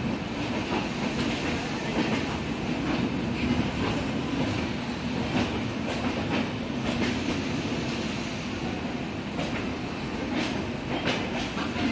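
Passenger train coaches rolling on the track, heard from on board: a steady rumble with wheels clicking irregularly over rail joints and points, the clicks bunching together near the end, and a faint high wheel squeal about seven seconds in.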